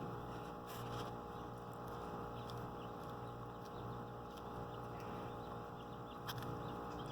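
Chickens pecking at hanging kale leaves: scattered soft taps and rustles over a steady low hum.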